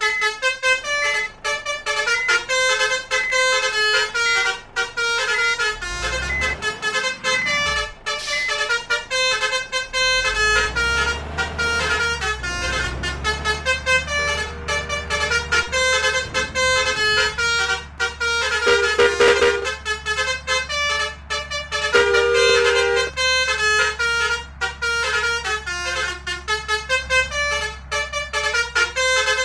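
Basuri multi-tone musical air horn, the 'telolet' horn, playing quick tunes over and over in rapid runs of notes. A deep engine rumble comes in about a third of the way through and continues under the horn.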